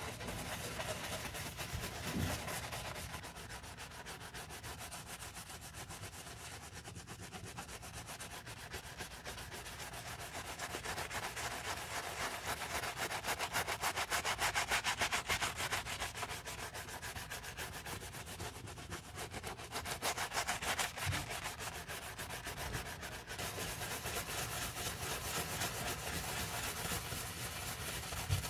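A stiff natural-bristle scrubbing brush scrubs the soapy canvas upper of a Dior sneaker. It makes a continuous wet scratching of rapid back-and-forth strokes, which grows louder around halfway through.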